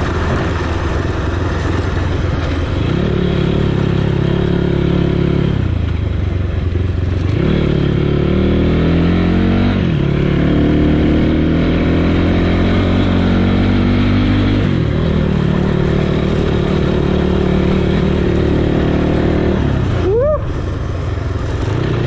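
Motorcycle engine pulling up a rough hill road, its revs climbing and dropping back several times. A short rising whistle-like tone near the end.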